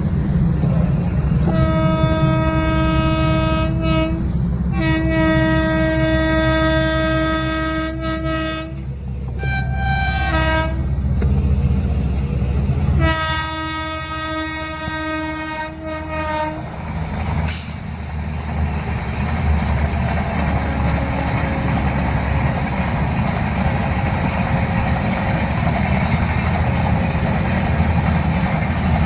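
A locomotive horn sounds four times over the low rumble of a train: two long blasts, a short one about ten seconds in, and another long blast. After that the train's rumble goes on steadily.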